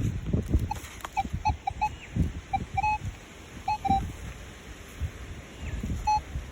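Metal detector giving short, irregular target beeps as it is passed over a freshly dug hole, with dull thumps and rustling of soil being handled.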